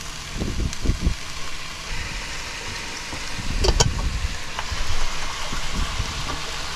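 Water running from a sink tap into a glass sauce jar as it is rinsed out, over a low steady hum, with a few dull knocks in the first second and a sharp clink near the middle.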